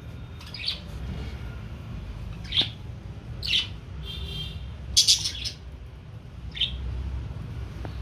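Small caged pet parrots giving short, scattered chirps and squawks, about six calls, the loudest about five seconds in.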